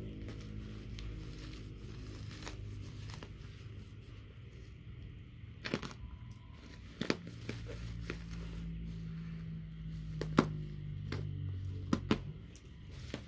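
Packing tape and a plastic-and-bubble-wrap parcel being cut and torn open with a small cutter blade: scattered sharp crinkling and tearing noises, the loudest about ten seconds in, over a steady low hum.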